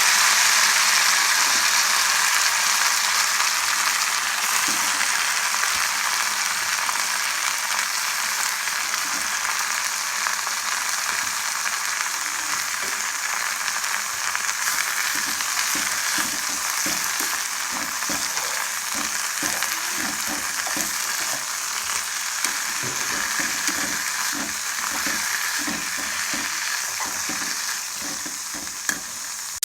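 Mint leaves sizzling steadily in hot oil in a pan as they are sautéed and stirred. There is a run of small scraping clicks from the stirring, which come more often in the second half.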